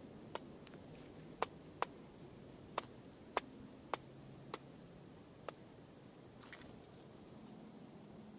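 Dark-eyed junco pecking seed in a metal pan feeder: about ten sharp, irregular taps over the first five seconds or so, with a few faint, very short high chirps.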